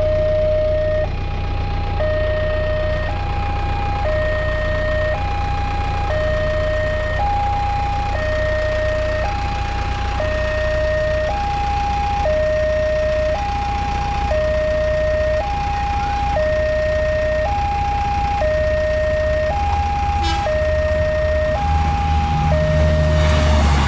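Railway level-crossing warning alarm sounding a two-tone electronic wail, a low and a high tone alternating about once a second. Near the end, the rumble of an approaching train rises underneath it.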